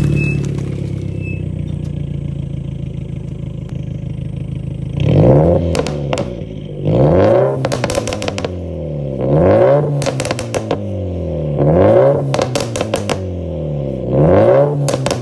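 Subaru WRX STI (VAB) turbocharged flat-four idling, then revved five times in quick blips. Each time the revs fall, the exhaust crackles and pops from a pops-and-bangs ECU tune.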